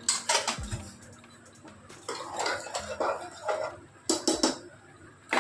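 A metal spoon clinking and scraping against a cooking pot as it is stirred. There are several sharp clinks, the loudest a quick cluster about four seconds in.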